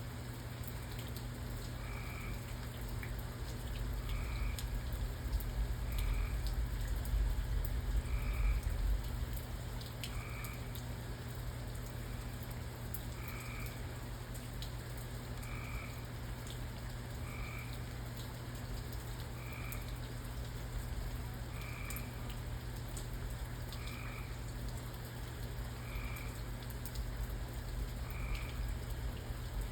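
A frog calling over and over, one short call about every two seconds, over light rain with scattered drips and a steady low rumble that swells a few seconds in.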